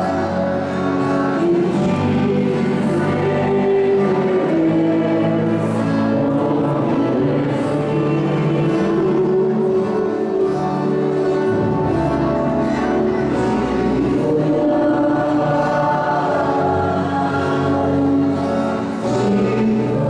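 Church choir singing a hymn with instrumental backing, steady and continuous; music sung while communion is given at Mass.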